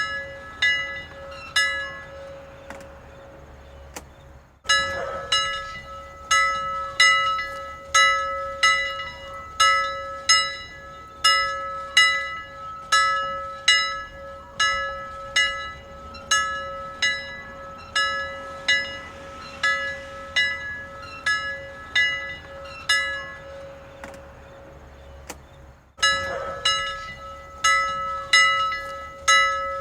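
A bell rung over and over, struck about one and a half times a second, its note ringing on between strokes. The strokes break off twice: one pause from about three seconds in until nearly five seconds, and another from around 24 seconds until just after 26 seconds.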